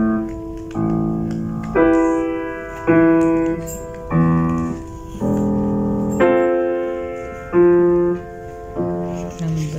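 Steinway grand piano played solo: slow chords, a new one struck about once a second and left to ring and fade before the next.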